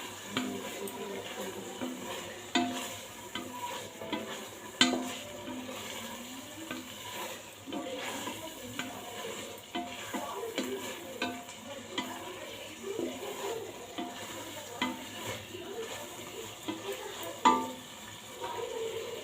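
A spoon stirring and scraping food in a cooking pot, knocking against the pot again and again at an uneven pace, with two louder knocks at about five seconds and near the end. A faint sizzle of frying runs underneath.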